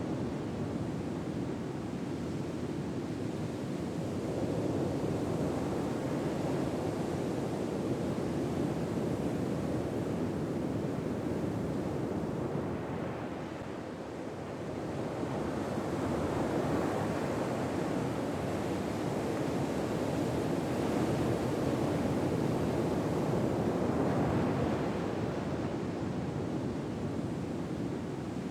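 Ocean waves washing ashore, a steady rush that swells and ebbs slowly, easing off about halfway through and building again afterwards.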